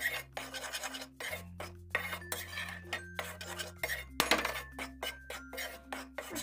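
Flat metal spatula scraping and clinking against a metal kadhai, in quick, uneven strokes, as dry roasted wheat flour is stirred so it doesn't stick to the hot pan. Soft background music of long held notes runs underneath.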